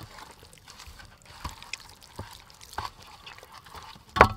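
Wet squelching and soft clicks of hands rubbing oyster sauce into the skin of a raw whole chicken on a metal tray. A single sharp slap or knock sounds about four seconds in as the chicken is lifted and turned.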